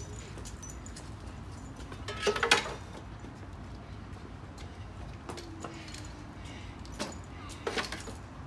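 Garden tools clattering and clinking as they are laid into a collapsible wagon, their handles and heads knocking on its metal frame: one loud clatter about two seconds in, then lighter knocks and clicks near the end.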